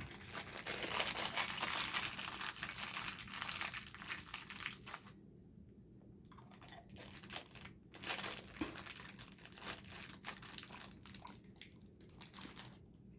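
Plastic candy wrapper crinkling and tearing as it is worked open: about five seconds of dense crinkling, then scattered quieter crackles.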